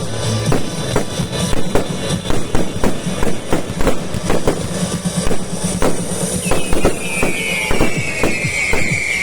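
Fireworks display: a fast, irregular series of bangs and crackles over music. About two-thirds in, a long whistle starts and slides slowly down in pitch.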